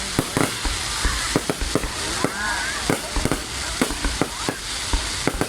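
Fireworks going off: a quick, irregular string of sharp pops and bangs, several a second, over a steady crackling hiss.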